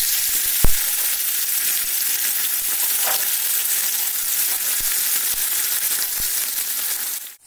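Bata fish frying in hot oil in a kadai: a steady sizzle, with one sharp knock a little under a second in and a few fainter clicks as the fish are turned. The sizzle stops abruptly near the end.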